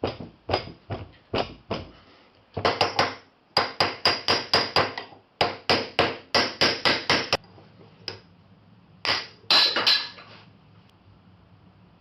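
Hammer striking again and again in quick runs of about three or four blows a second, the last few blows ringing.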